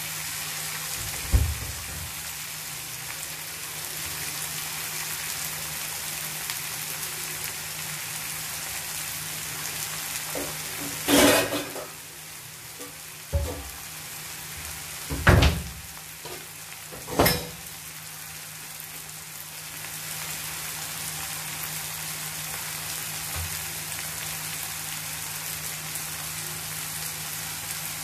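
Chopped cluster beans and onions sizzling in oil in a kadai, a steady hiss. A steel spoon knocks and scrapes against the pan a few times, loudest about 11 and 15 seconds in.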